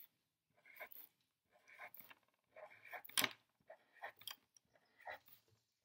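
Black Sharpie permanent marker drawing small circles on paper: a series of short, faint strokes, about two a second.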